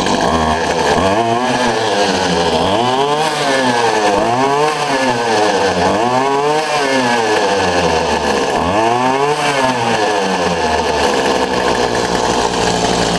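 Poulan Pro 25cc two-stroke string trimmer engine, running on a freshly cleaned carburetor and new fuel lines. It is blipped up to high revs and let fall back about five times, then settles to a steady idle near the end.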